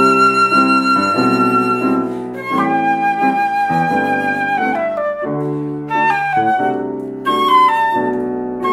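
Concert flute playing a slow melody of long held notes that steps downward, then rises again near the end, over sustained piano chords.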